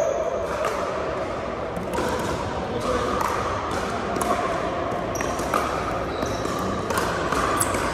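Pickleball rally: repeated sharp pops of paddles striking the hollow plastic ball, echoing in a large gym, over background chatter.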